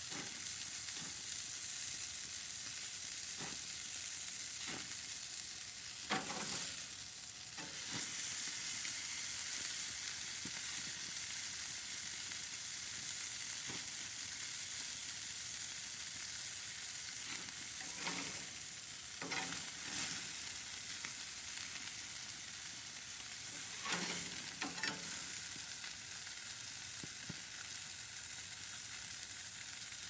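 Burger patties sizzling steadily on a hot grill, with a spatula scraping and flipping them several times.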